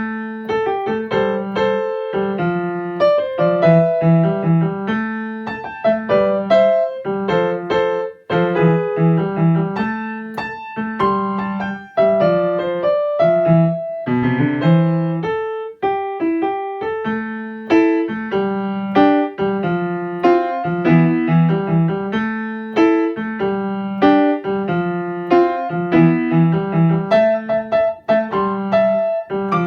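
Solo piano playing a slow blues in A minor: a repeating patterned bass figure in the left hand under a right-hand melody, with a few brief breaks between phrases.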